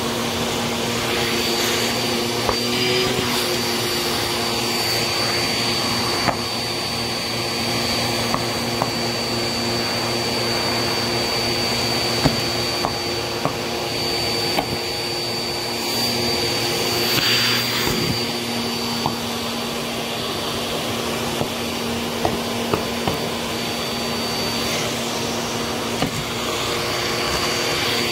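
Vacuum cleaner running steadily with a crevice tool, a constant motor hum topped by a thin high whine. Scattered sharp clicks and crackles come as bits of debris are sucked up off the shag rug.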